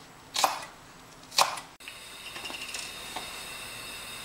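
Chef's knife chopping spring onion on a bamboo cutting board: two sharp strikes about a second apart. Then, after a sudden change, a steady faint hiss.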